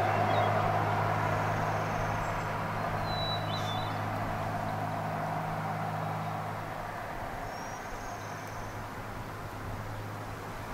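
Steady low hum of a motor vehicle's engine, with road noise that is loudest at first and fades over several seconds. A few short, faint bird chirps come through, one about three and a half seconds in.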